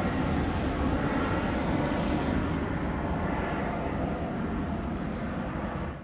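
Boeing 777-200ER airliner's jet engines heard as a steady rumble with a hiss above it. The hiss drops away a couple of seconds in as the aircraft moves off.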